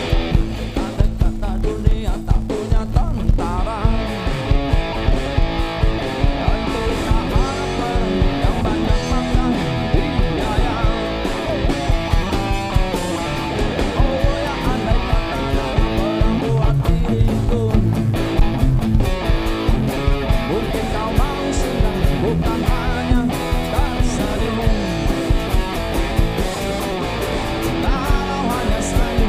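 Live rock band playing: electric guitar leading over acoustic guitar strumming, bass guitar, drum kit and keyboard.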